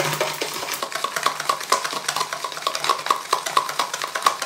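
Wire whisk beating instant coffee, sugar and water in a plastic bowl: a rapid, even clicking of the wires against the bowl, about four strokes a second, as the mixture is whipped into a creamy foam.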